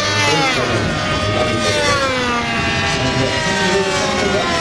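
Engine of a radio-controlled scale model fighter plane running in flight, a steady propeller drone whose pitch slides steadily downward as it passes.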